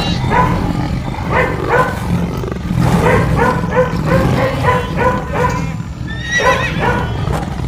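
Horse neighing and whinnying, short calls repeated in quick succession over a steady low rumble.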